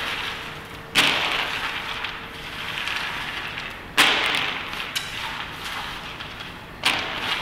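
Handfuls of shelled groundnuts scooped off a plastic tray and dropped into another plastic tray, three times: about a second in, about four seconds in and near the end. Each lands with a sudden rattle that dies away over a second or so.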